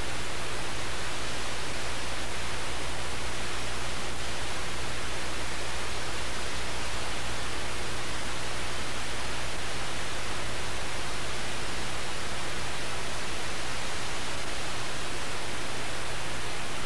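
Steady hiss of recording noise with a low hum underneath, unchanging throughout: the noise floor of an old videotape recording with no program sound.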